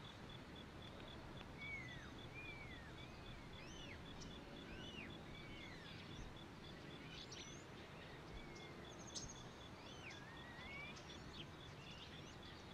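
Faint outdoor nature ambience: scattered birds giving short whistled notes that slide up and down, over a rapid, even, high-pitched pulse like an insect's chirping.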